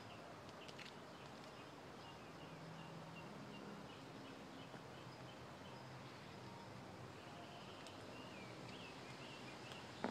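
Quiet outdoor ambience with a low steady hum and faint small-bird chirps repeating in the background. A single sharp click comes near the end.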